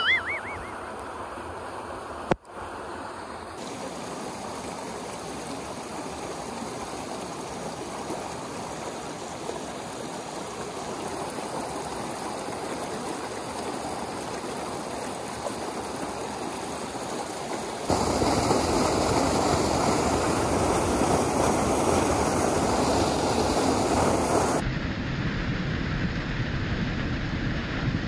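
Shallow mountain stream running over rocks, with water pouring from culvert pipes into the pool: a steady rush of water. It grows louder and fuller about two-thirds of the way through, then changes abruptly near the end.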